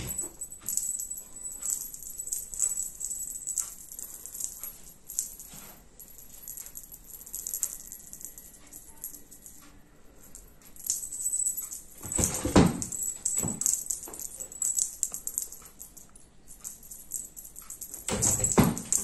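A cat playing with a feather wand toy: light, quick clicking and rattling from the toy as it is swished and batted. There are louder scuffles of the cat lunging at it about twelve seconds in and again near the end.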